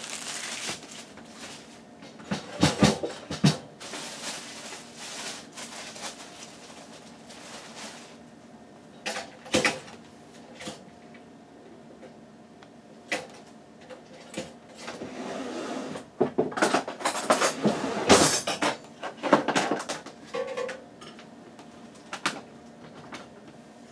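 Off-camera kitchen clatter: scattered knocks and clicks of dishes, cupboards and utensils being handled, with a busy run of knocks about two-thirds of the way through.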